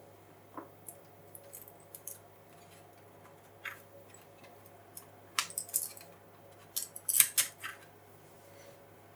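Sharp clicks and small scraping ticks of a replacement ULA chip being handled and pressed into its socket on an Oric computer's circuit board. The clicks are sparse at first, then come thicker and louder from about five to eight seconds in.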